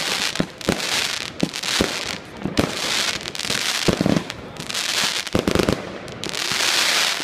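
Aerial fireworks going off: a rapid, irregular string of bangs mixed with repeated spells of crackling, the loudest crackle near the end.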